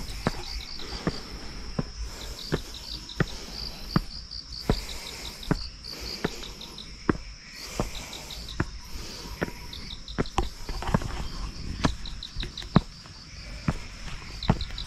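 Footsteps of a person walking at a steady pace, about one step every three-quarters of a second. Behind them, insects chirp in the woods: a constant high drone with repeated short runs of quick, high chirps.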